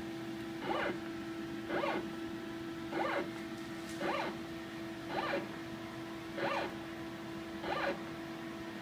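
Motorized positioning stage of an ultrasound field-scanning rig stepping the hydrophone: a short whirring motor stroke about once a second, each rising then falling in pitch, seven in a row, over a steady hum.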